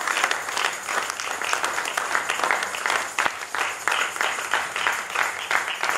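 Congregation applauding, many hands clapping at once.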